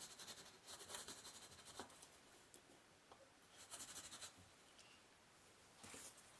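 Faint scratching in three short bursts, like a marking tool or light hand work rubbing on a surface.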